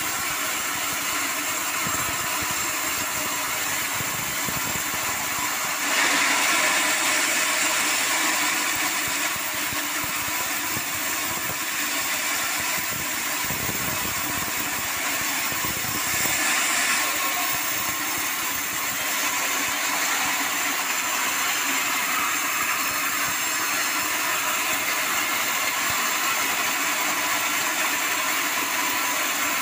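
Band sawmill running, its blade cutting lengthwise through a hard acacia log as a steady mechanical noise. It grows louder and sharper for about three seconds from about six seconds in, and again briefly around sixteen seconds.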